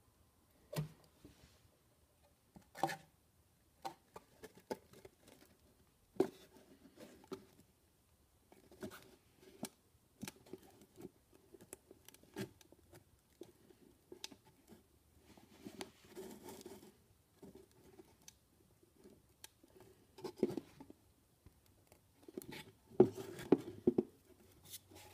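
Hollow 3D-printed plastic ukulele parts handled and fitted together by hand: scattered light knocks, taps and scraping of plastic against plastic, with the loudest knocks near the end.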